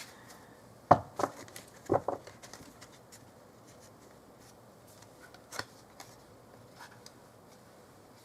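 Tarot and oracle cards being handled and set down on a table: a few sharp light taps, two quick pairs about a second apart near the start, then one more about five and a half seconds in, with quiet between.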